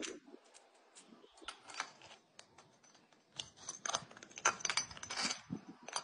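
A crow's beak and claws tapping and scraping against bricks and a plastic tube: irregular sharp clicks, sparse at first and busier and louder in the second half.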